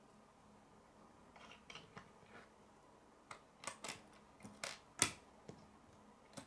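Plastic K'nex pieces being handled and snapped together on a wooden table: faint rustling, then a run of sharp clicks in the second half, the loudest about five seconds in.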